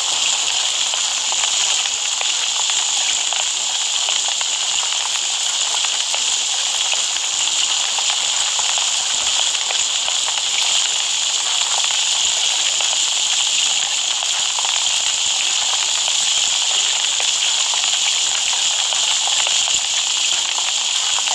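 Steady, loud crackling hiss that keeps on without a break, with most of its energy in the high register.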